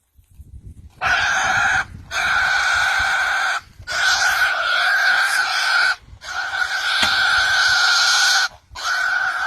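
Boar squealing loudly: a run of long, shrill squeals starting about a second in, each broken off by a short gasp before the next.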